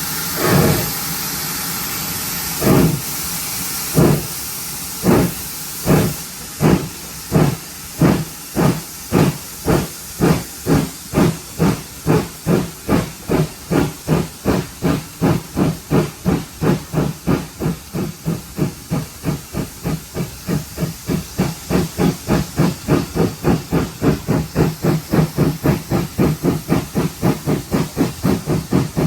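Pannier tank steam locomotive 7714 pulling away: a loud hiss of steam over the first few seconds, then exhaust chuffs that come slowly at first and quicken steadily to about three a second as it gathers speed.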